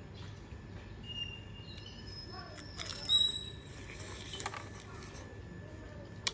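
Small birds chirping in short high whistles over a steady low hum, with one short, sharp, loud crunch about three seconds in, when a piece of fried bullfrog is bitten.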